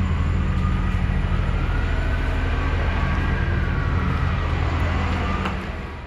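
A vehicle engine running close by: a steady low rumble with a faint whine that rises and falls in pitch, fading away near the end.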